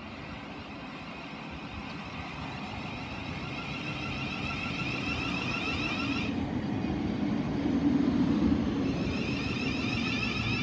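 Thameslink Class 700 (Siemens Desiro City) electric multiple unit arriving and slowing into the platform, its wheel rumble growing louder as the carriages pass. Over the rumble sits a high electric whine from its traction equipment as it brakes; the whine cuts out about six seconds in and comes back near the end.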